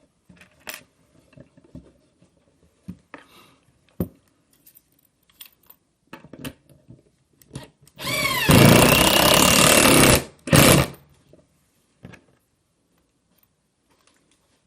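Cordless drill with a Phillips bit driving a screw into wood: the motor spins up with a rising whine about eight seconds in, runs for about two seconds, then gives one short final burst. Before it, light knocks and handling of the wooden pieces.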